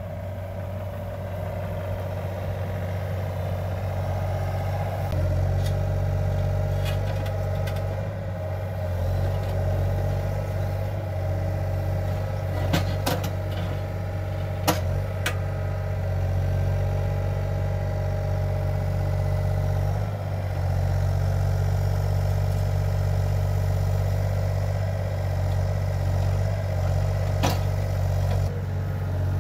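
Yanmar mini excavator's diesel engine running steadily as the arm and bucket move boulders, its note rising and falling slightly with load. A few sharp knocks come through, two close together about halfway through and one near the end.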